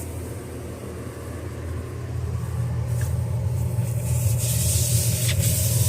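A steady low rumble that grows louder over the first few seconds and then holds.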